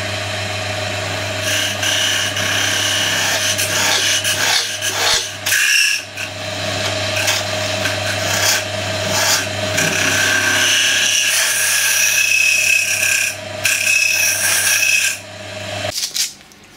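Wood lathe running with a steady motor hum while a hollowing tool cuts into the end of a small spinning wooden tulip blank, the scraping of the cut coming and going. The lathe stops near the end.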